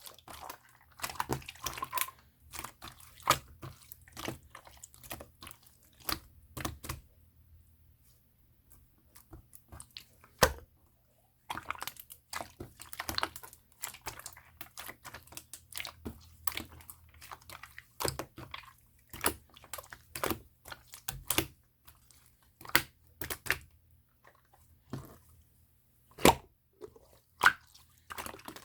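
Opaque slime being squeezed and pressed by hand: irregular wet clicks and pops, with a short pause about eight seconds in.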